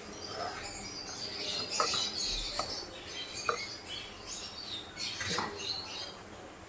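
Slotted spoon stirring chopped vegetables and shredded chicken in a nonstick pan, with four sharp knocks of the spoon against the pan. Faint high chirping runs underneath.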